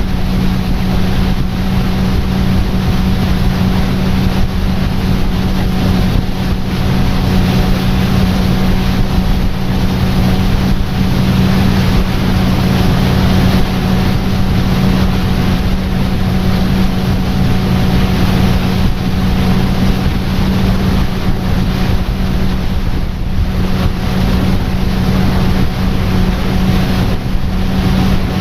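Tour boat's motor running steadily under way, a constant even drone, with a steady rush of wind and water noise over it.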